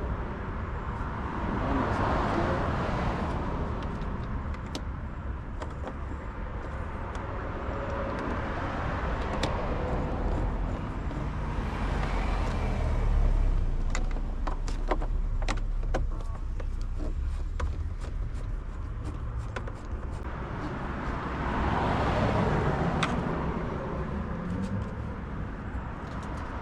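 Steady low rumble of road traffic, with a car passing twice, once about two seconds in and again near the end. Scattered small clicks of screws and a screwdriver being handled in the middle.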